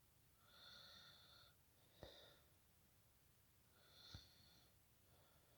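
Near silence: a person breathing faintly, with two small clicks about two seconds apart.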